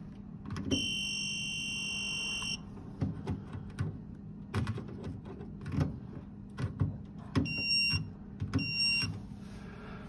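Handheld electrical tester beeping as its probes are pressed onto a boiler's wiring terminals: one long, high beep of about two seconds a second in, then two short beeps near the end. Between the beeps come scattered clicks and knocks of the probes and tester being handled.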